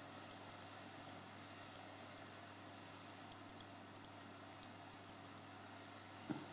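Faint, scattered clicks of a computer keyboard and mouse at irregular intervals over a low steady hum, with one brief louder low sound near the end.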